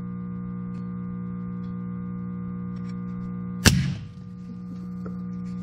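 A steady low hum, then about two-thirds of the way through a brief crackle from a MIG welder striking a single tack weld on a steel exhaust pipe, over in a fraction of a second.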